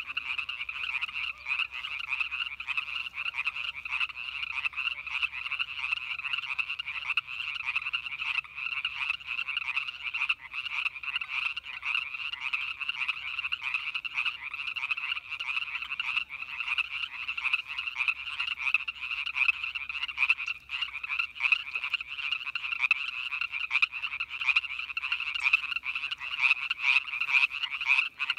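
Dense chorus of many frogs calling together, an unbroken din of rapid calls overlapping in two pitches, one around a higher note and one lower.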